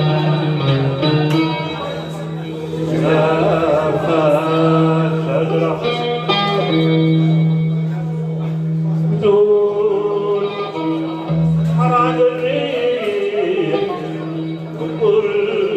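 Live music: a man singing, accompanied by plucked string instruments, with a low sustained note running underneath.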